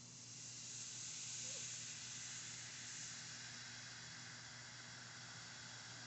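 Battery acid fizzing as baking soda is poured in: a faint, steady hiss of bubbling foam, the sign of the acid being neutralized and giving off gas. It swells over the first second or two, then levels off.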